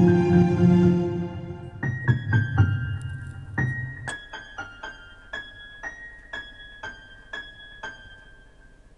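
Music on a piano-like keyboard: a full, bass-heavy passage that thins out about two seconds in to a sparse melody of single high struck notes, each ringing briefly, growing fainter toward the end.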